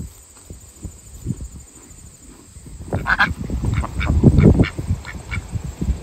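Domestic ducks quacking in a quick run of short quacks that starts about three seconds in; before that only faint low rustling.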